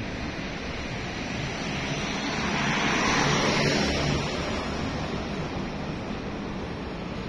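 City street traffic noise: a steady rushing hiss, with one vehicle passing close, louder about three seconds in and then fading.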